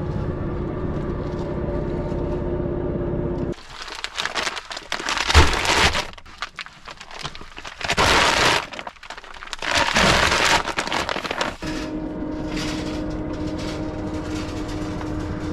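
A vehicle engine running with a steady hum. In the middle it gives way to several loud crackling, crunching bursts, then the steady hum returns for the last few seconds.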